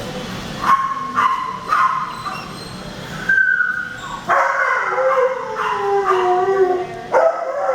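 Several dogs in shelter kennels barking and yipping in short calls. About halfway through comes one long drawn-out cry that slowly falls in pitch.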